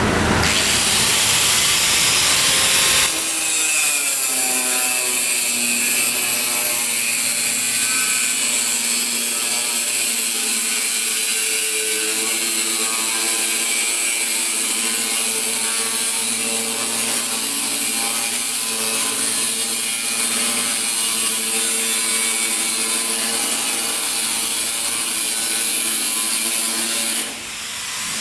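Steel plate being cut with a power tool: a continuous harsh hiss with ringing tones that slowly waver up and down in pitch. About three seconds in the low rumble drops away, and the sound dips briefly near the end.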